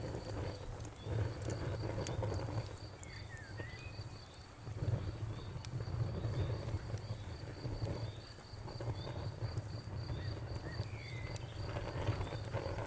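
A campfire crackling with sharp pops over a low, swelling rumble. A cricket chirps steadily at an even pace throughout, and a bird gives short calls twice.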